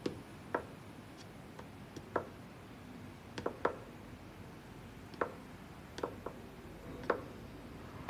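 High-heeled pumps clicking on a wooden floor: a woman's footsteps, about ten sharp, unevenly spaced steps.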